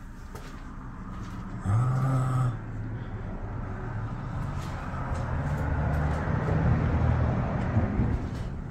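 Low mechanical hum with rushing air from a large ventilation blower and its motor. It grows louder over several seconds, then eases. About two seconds in there is a brief, loud, steady low-pitched drone.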